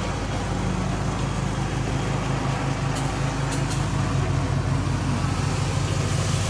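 An engine idling steadily with a low, even pulse.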